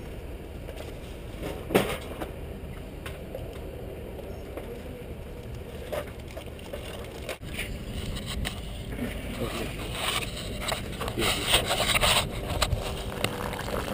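Skateboard wheels rolling with a rumble, a sharp clack about two seconds in, and rougher scraping noise later on.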